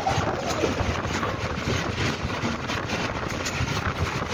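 Passenger train running on the line, heard from on board: a steady rumble and rattling clatter of the coach on the track, with wind buffeting the microphone.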